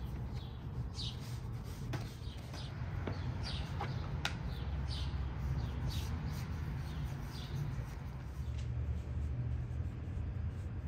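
Small birds chirping: short, downward-sweeping chirps repeating about once a second, stopping a couple of seconds before the end. Under them runs a steady low rumble, with a few soft clicks.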